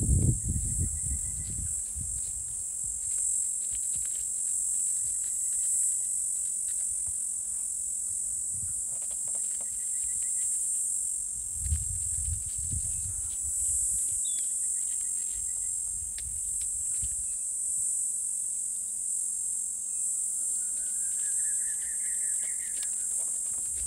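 Steady high-pitched chorus of insects, with a few short trilling bird calls and a rising, pulsing call near the end.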